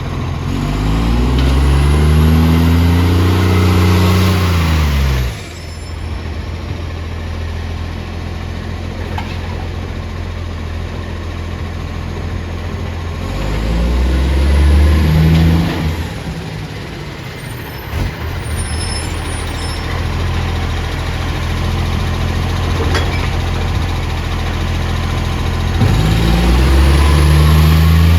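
Bus diesel engine with a loud exhaust leak, running steadily and then revving up three times, its note rising each time with a strong hiss over the top before dropping back.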